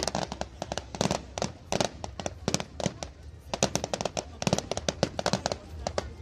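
Fireworks display: a rapid barrage of bangs and crackles, several a second, thinning briefly about halfway through before picking up again.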